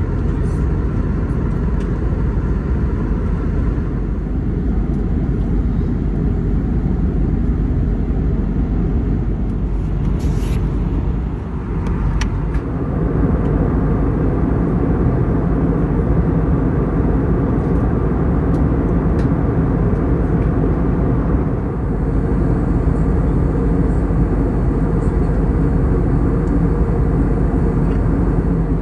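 Steady cabin noise of an Airbus A321neo in cruise: a loud, even rush of airflow and its Pratt & Whitney PW1100G geared turbofan engines, with a faint steady hum in it. The sound dips and shifts slightly about twelve seconds in.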